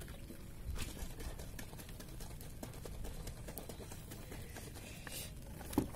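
Low outdoor background rumble with scattered faint clicks, and one short sharp knock near the end.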